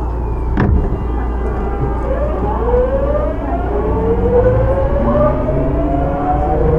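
Hitachi GTO-VVVF inverter of a Tokyu 9000 series electric train whining as the train accelerates, heard from inside the car over the rumble of the running gear: several tones climb steadily in pitch from about two seconds in. There is a single knock about half a second in.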